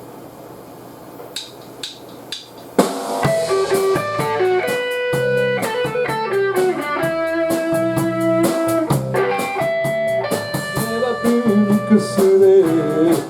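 Live rock band instrumental intro. Three sharp, evenly spaced clicks are followed, a little under three seconds in, by guitar and drum kit coming in together and playing on with no singing.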